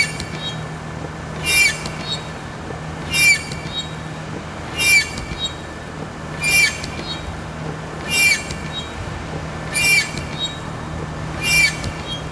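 Toyota Hilux windshield wipers sweeping, with a harsh squeal from the wiper blades dragging on the glass once per cycle, about every second and a half. The blades are catching the windshield, and they have already scored deep scratches into the glass.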